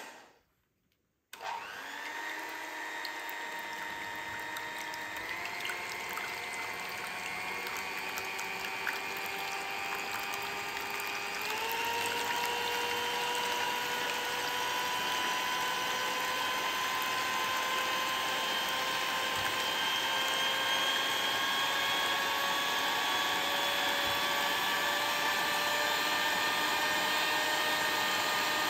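Electric mixer motor running steadily, starting about a second in, its whine stepping up in pitch twice and then rising slowly.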